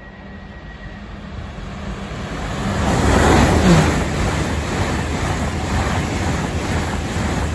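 Great Western Railway Hitachi Intercity Express Train running through the platform at speed without stopping. The rush of the train builds over about three seconds, peaks as the front of the train passes, then holds steady as the coaches go by, with wind buffeting the microphone.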